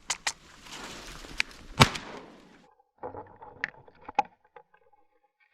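A single sharp shotgun blast about two seconds in, from a duck hunter firing at a decoying mallard, amid rustling noise; faint scattered clicks follow.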